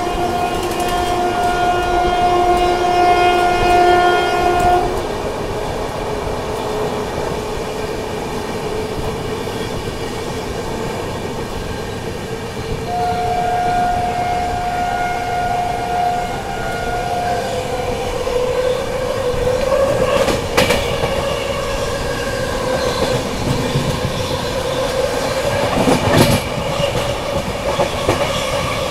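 Indian Railways locomotive horn sounding one steady blast of about five seconds. A second blast of about four seconds comes about thirteen seconds in. Underneath runs the steady rumble and rattle of a train moving slowly on the track, with two sharp knocks later on.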